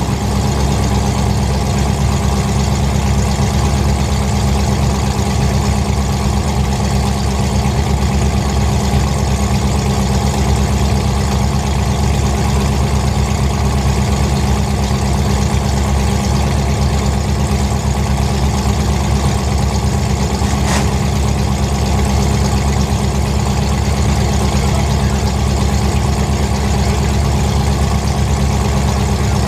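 Demolition derby car engines running steadily at idle, with no revving. A single sharp click about 21 seconds in.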